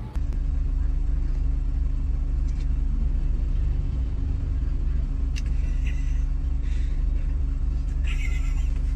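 Steady low rumble of a car's engine and road noise, heard inside the cabin, with a few faint short sounds over it.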